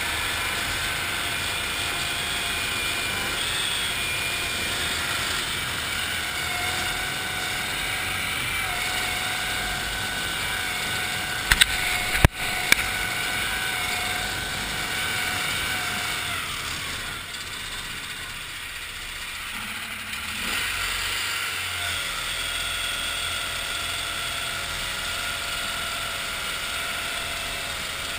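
A 1974 Cushman Trackster tracked vehicle running along with its engine and tracks going steadily. Three sharp knocks come about twelve seconds in, and the engine quietens for a few seconds past the middle before picking up again.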